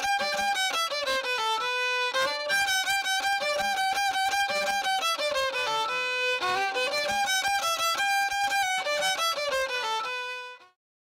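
Solo violin playing a mariachi melody of quick, short notes, stopping shortly before the end.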